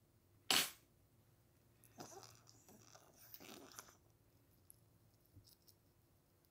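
Pet toothbrush brushing a Pomeranian's teeth: a sharp click about half a second in, then scratchy bristle scrubbing for about two seconds.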